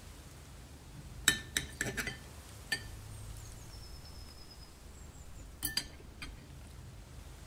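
Metal knife and fork clinking against a porcelain plate while cutting a slice of cake: a quick run of sharp clinks between about one and three seconds in, then a few more near six seconds.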